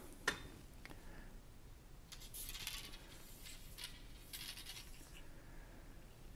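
Faint handling noises from a fishing rod blank and a trim band being slid over its end: a couple of sharp clicks at the start, then two soft scraping rustles in the middle.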